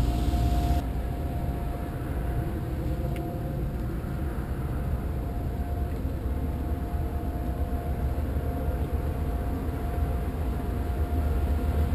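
Steady low rumble of a vehicle in motion, with a faint constant hum over it.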